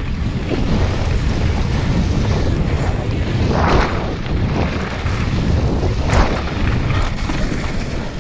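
Wind buffeting the microphone and tyres rumbling over gravel and dirt as a downhill mountain bike runs fast down a rough trail, the noise surging louder twice.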